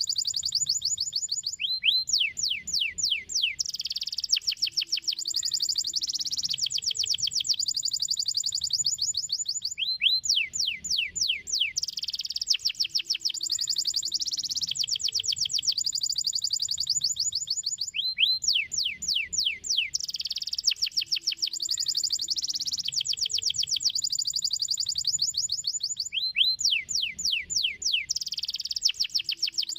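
Domestic canary singing: long, fast trills mixed with quick runs of falling sweeping notes. The same song phrase comes back about every eight seconds.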